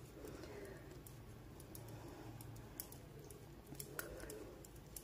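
Metal double-pointed knitting needles clicking lightly and irregularly against each other as stitches are knitted.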